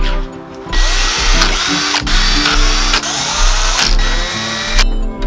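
Cordless drill-driver turning a screw in a fuser unit's sheet-metal frame. The motor runs for about four seconds, its pitch shifting as the speed changes, then stops.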